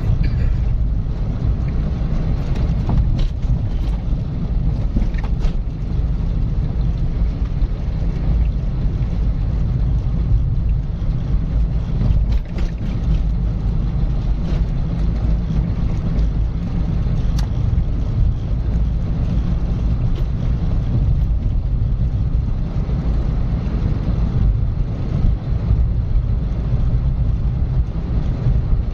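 Car driving steadily along a road: a constant low rumble of tyres and engine, with a few faint ticks.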